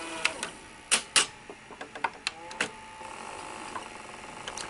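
Sony SL-100 Betamax deck's tape transport clicking and clunking several times, with a short motor whir in the middle, as it tries to rewind. The deck won't rewind, which the owner suspects may be the tape sticking to the drum.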